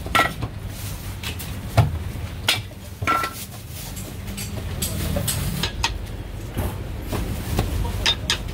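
Kitchen clatter at a chopping block: scattered sharp knocks of a cleaver and utensils on wood, one louder knock about two seconds in, over a steady low hum.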